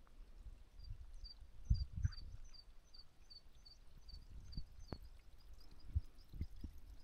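A small bird singing a run of a dozen or so short, high, evenly spaced notes, about three a second, lasting some four seconds. Dull low thumps are mixed in now and then.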